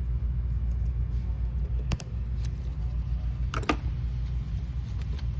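A few sharp plastic clicks as a pick works at the locking tab of an ignition coil's wiring connector: one about two seconds in and a quick pair about a second and a half later. A steady low rumble runs underneath.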